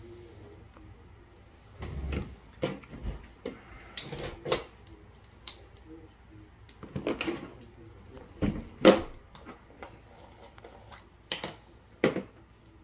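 Hand-work on a coax cable end at a workbench: a pocketknife and a PL-259-style connector clicking, tapping and scraping against each other in irregular bursts, the sharpest knock about nine seconds in and another near the end.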